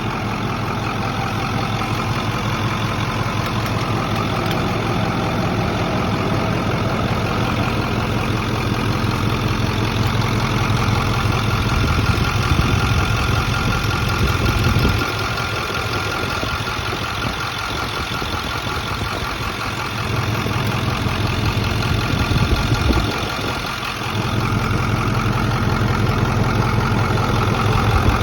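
Ford F-250 engine idling, with an intermittent clicking that comes and goes, like two spoons clicking together. The sound rises somewhat about halfway through, then sits lower for several seconds. The cause of the click is unknown.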